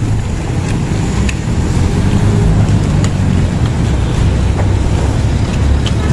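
Steady low engine rumble of road traffic and heavy equipment, growing a little louder about two seconds in, with a few faint clicks.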